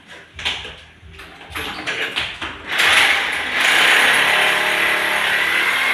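A few clicks and knocks, then about three seconds in an electric drill starts up and runs steadily with a high whine, drilling into the wall to take plastic wall plugs for the wall cabinet.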